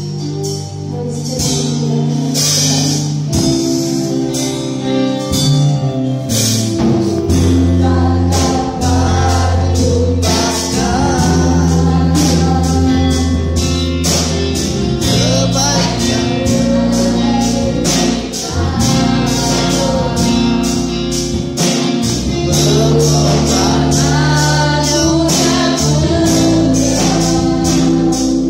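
Church worship band playing a gospel praise song with a steady beat, about two strokes a second over sustained bass. Several voices sing the melody from about ten seconds in.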